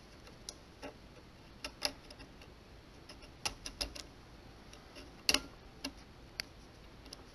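Irregular small clicks and ticks from a Willcox & Gibbs sewing machine's automatic tension assembly being twisted and worked by hand, the loudest about five seconds in; the tension is stuck and won't come out.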